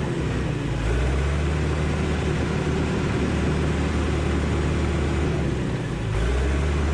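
Diesel engine of heavy earthmoving equipment running steadily with a low drone, swelling a little about a second in and again near the end.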